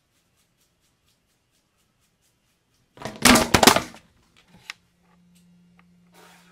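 A camera falling over and clattering: a burst of sharp knocks and rattles about three seconds in that lasts about a second. A few faint clicks and a faint low steady hum follow.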